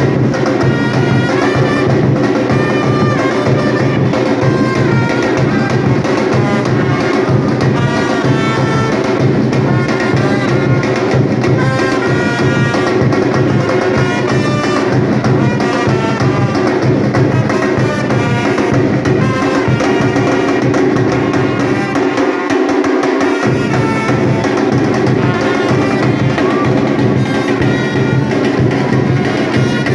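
Batucada drum group playing a dense, driving samba-style beat with bass drums and higher percussion under a melodic line. The low drums drop out for about a second around two-thirds of the way through, then come back in.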